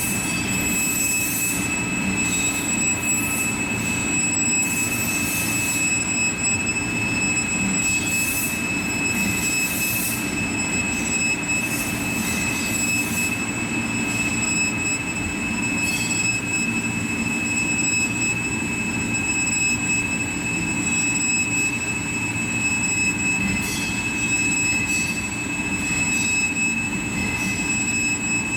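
Machine tool cutting a block of AISI D2 tool steel: a steady machine hum with two constant high whines, broken by irregular short bursts of hiss.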